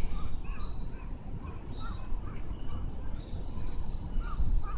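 Several birds chirping and calling, many short rising-and-falling notes overlapping at different pitches, over a steady low rumble.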